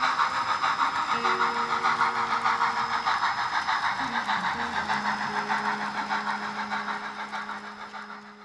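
Rhythmic chugging from a model steam locomotive's sound, with steady lower hum tones under it, one of which drops in pitch about four seconds in; it fades out toward the end.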